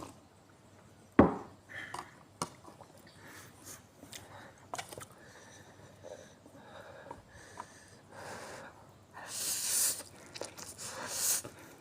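Close-up eating sounds of a person having spicy noodles: scattered small mouth clicks and smacks, with a sharper knock about a second in. Near the end come two longer hissing sounds, breaths drawn through the mouth.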